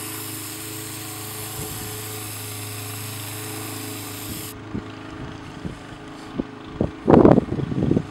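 Aerosol can of foaming coil cleaner spraying in one steady hiss with a faint buzzing undertone, cutting off abruptly about four and a half seconds in. A few faint clicks follow, then a loud rustle near the end.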